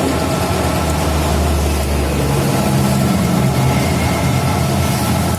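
An engine running steadily, its note changing a little over two seconds in from a low hum to a somewhat higher, steady pitch.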